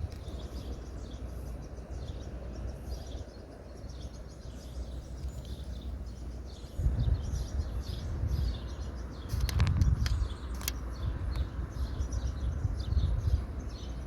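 Small birds chirping and twittering steadily, over a low rumble that gets louder about halfway through, with a few sharp clicks just after that.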